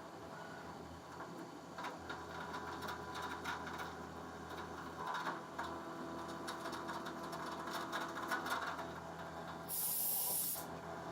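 CNC bed mill machining a pocket: a steady spindle hum with scattered ticking and rattling of cutting and chips. About ten seconds in comes a one-second burst of hiss, like coolant or air being sprayed.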